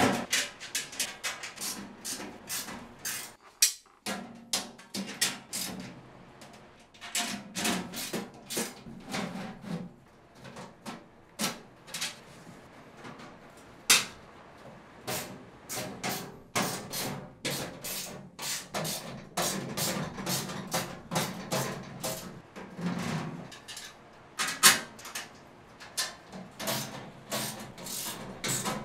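Painted sheet-steel panels of a welding cart knocking and clanking as they are fitted into the frame and fastened, with irregular sharp taps and clicks throughout.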